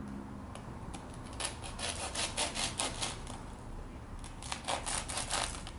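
Serrated bread knife sawing through a burger's soft bun and crispy breaded fried chicken cutlet: quick, crunchy back-and-forth scraping strokes in two bouts.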